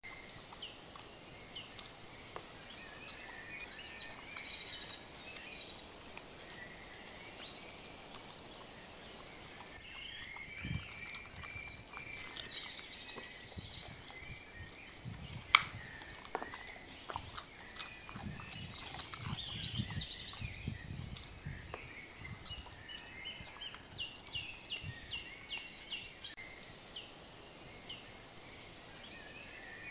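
A fennec fox chewing a piece of carrot, with a few sharp crunches, over high chirping calls that go on throughout.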